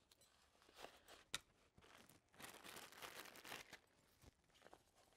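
Faint rustling of fabric as stroller bug canopies are tucked into a storage pocket, strongest in the middle, with a light click about a second and a half in.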